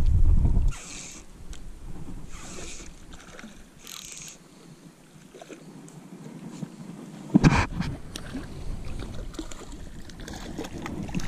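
Wind buffeting the microphone with a low rumble that drops away about a second in. It is followed by three soft swishes about a second and a half apart and one sharp knock about seven seconds in, after which the wind rumble returns.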